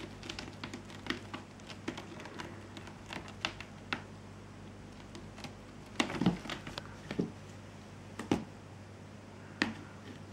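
A cat's claws raking a rope-wrapped scratching post in quick, scratchy clicks, then a few louder knocks and scrabbles from about six seconds in as it climbs the post.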